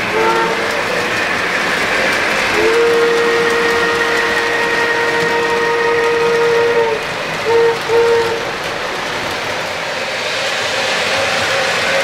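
Lionel PRR S2 turbine model's sound-system whistle blowing a chord: a brief toot, then one long blast of about four seconds, then two short toots. Under it runs the steady noise of the three-rail O-gauge train rolling along the track.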